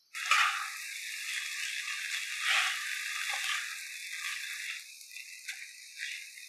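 Noodles and vegetables sizzling in hot oil in a wok as they are tossed and stirred with a spatula, with a few louder scraping strokes. The sizzle fades somewhat in the last couple of seconds.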